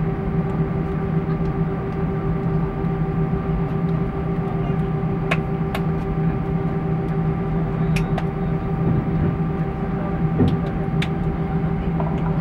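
Cabin noise of an Airbus A320 taxiing after landing: a steady hum and whine from the idling engines, with several constant tones running through it. A few short, sharp clicks sound from time to time.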